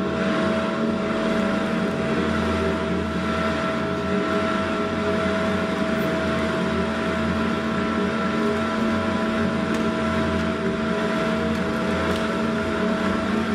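Electronic drone soundtrack for a contemporary dance piece: a steady, engine-like hum of several held tones over a low rumble that swells and fades.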